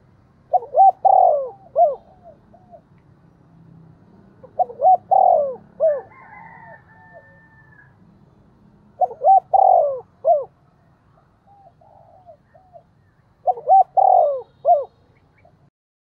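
Spotted dove cooing its calling song: four phrases of several notes each, about a second and a half long, repeated roughly every four and a half seconds.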